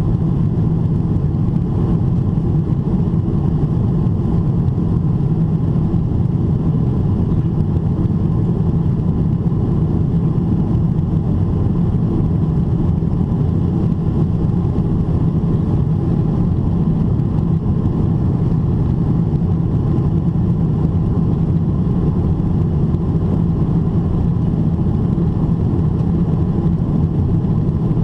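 Steady low rumble of cabin noise inside a climbing Boeing 777-300ER: airflow over the fuselage and the GE90-115B turbofans at climb thrust, even and unchanging, heaviest in the bass.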